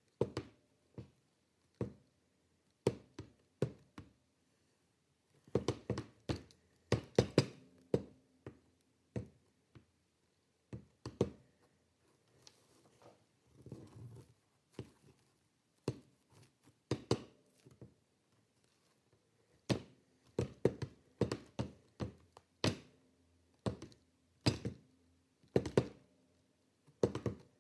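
A puppet's padded hands and feet knocking and tapping on a tabletop as it is worked, in irregular clusters of thunks. There is a softer scuffing stretch about halfway through.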